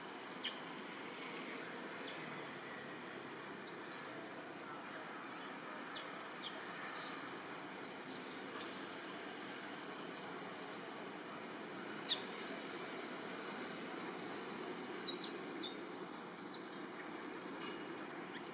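Forest ambience: a steady background hiss with many short, high-pitched chirps and squealing calls scattered throughout, thickest in the middle and near the end.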